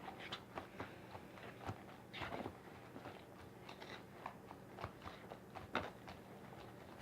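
Faint, irregular sticky clicks and crackles of slime being stirred and worked while it is still forming.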